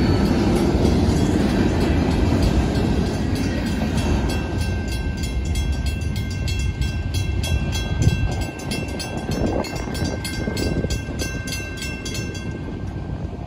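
Freight cars rolling through a road crossing, their low rumble fading as the end of the train passes. The crossing's warning bell rings rapidly and evenly, plain once the train noise dies down, and cuts off about a second before the end.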